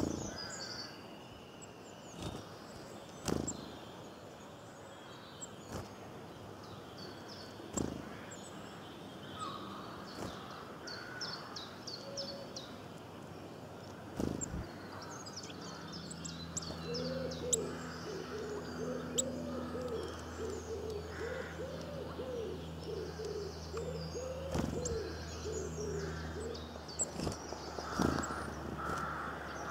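Small birds chirping and twittering, with a few sharp knocks. From about halfway to near the end, a steady low hum runs under them with a wavering tone on top.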